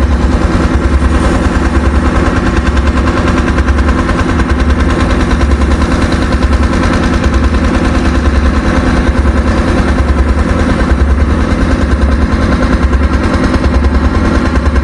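A loud engine running steadily with a rapid, even chugging pulse and a deep hum.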